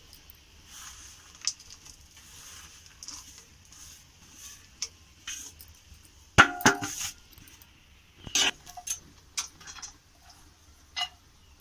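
Metal spatula scraping and knocking against a metal karahi while stirring thick chana dal halwa, with a few sharp clangs, the loudest about six seconds in and another about two seconds later.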